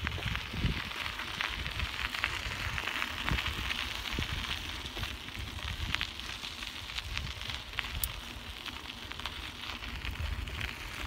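Bicycle tyres rolling over a dirt and gravel trail: a steady crackling crunch full of small ticks, over a low rumble from the moving bike.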